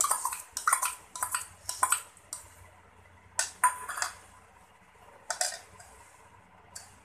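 Steel spoons scraping and clinking against a steel ladle and a large steel bowl: a quick run of clinks over the first two seconds or so, then a few single knocks with pauses between.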